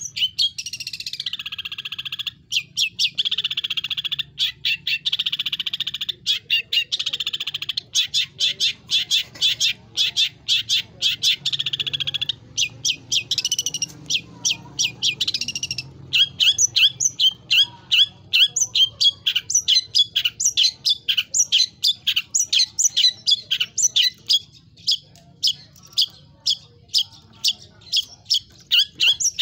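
Long-tailed shrike (cendet) singing a varied song packed with mimicked phrases. It opens with a steady buzzy trill for several seconds, turns to rapid chattering, and from about halfway gives a fast run of sharp, repeated notes, about four a second.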